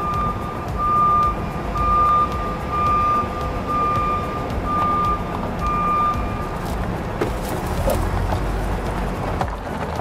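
Electronic reversing beeps from a radio-controlled construction toy's sound unit: a single-pitch beep about every three quarters of a second over a low rumble. The beeps stop about two-thirds of the way through, and a few clicks and some light clatter follow.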